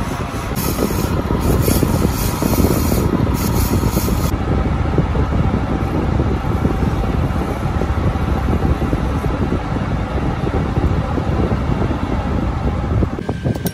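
Metal lathe running with a single-point tool facing a brass-coloured blank: a steady, dense cutting rumble with a hissy top that drops away about four seconds in. Near the end the cutting noise falls off as the cut stops.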